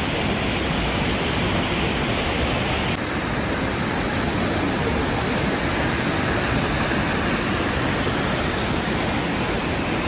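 Steady, dense rush of Iguazu Falls' water plunging over the cliffs into the gorge below. The tone shifts slightly about three seconds in.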